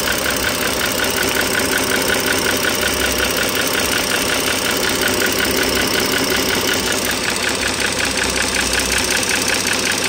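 2009 Dodge Journey SXT's six-cylinder engine idling, heard close up, with a fast, even clicking, tapping noise over the running engine. The owner puts the tapping down to the rocker arm assemblies, whose sheared locating pins let the rockers shift and go short of oil.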